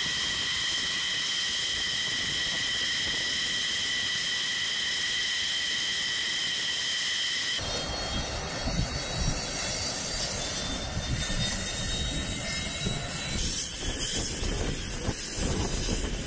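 F-15 Eagle jet engines running on the ground: a steady, high turbine whine made of several fixed tones. About seven and a half seconds in, the sound changes to a rougher, noisier jet rumble with the whine much weaker.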